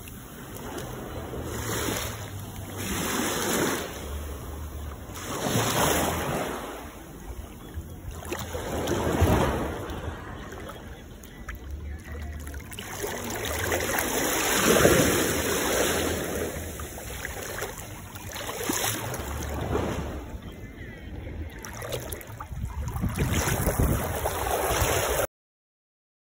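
Small waves washing up onto a sandy beach and running back, the surf swelling and fading every few seconds. The sound cuts off abruptly near the end.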